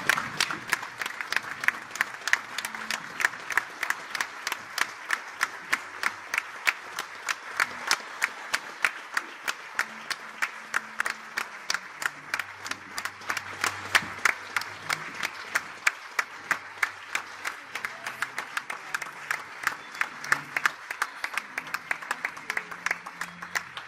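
Audience applauding at length, with one nearby pair of hands clapping in a steady, even rhythm of several claps a second above the crowd.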